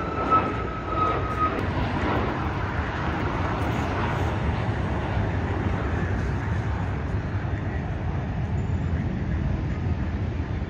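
Jet airliner climbing out after takeoff, its engines giving a steady, low rumble. A thin high whine at the start fades out within the first second and a half.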